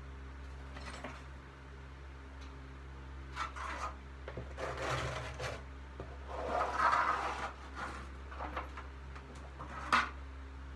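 Objects being handled and shifted: scattered rubbing and scraping with light knocks, the loudest stretch about seven seconds in and a sharp knock near the end, over a steady low hum.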